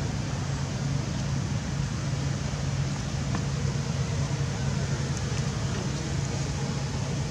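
A steady low hum over an even background hiss, unchanging throughout, with a couple of faint ticks.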